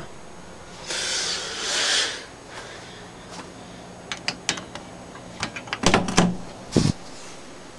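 Door and handling noises: about a second of airy hiss in two swells near the start, then scattered light clicks and three louder knocks about six to seven seconds in.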